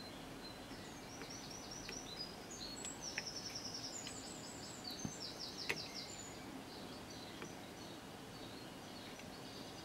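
A bird singing faintly, with several quick runs of high, rapidly repeated chirps through the middle seconds, over a steady background hiss. A few light clicks sound among them.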